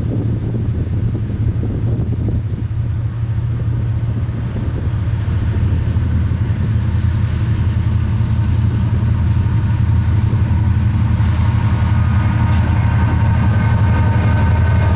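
Approaching Union Pacific diesel-electric train: a steady low engine rumble that grows louder as it nears, with faint higher steady tones joining near the end.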